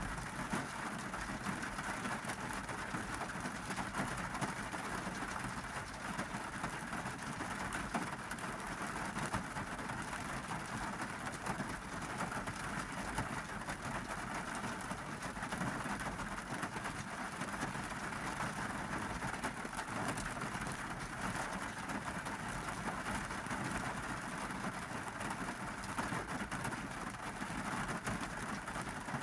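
Heavy summer monsoon rain falling on a car's roof and windshield, heard from inside the cabin: a steady, dense patter of many drops without a break.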